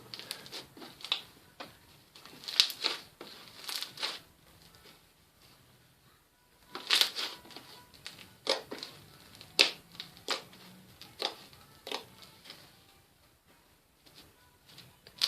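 Cloud slime being squeezed and stretched by hand, giving irregular sharp clicks and pops about once a second, over faint background music.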